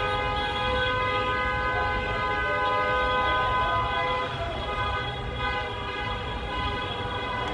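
A train running: a low rumble under several steady high tones held throughout, the tones shifting slightly about four seconds in.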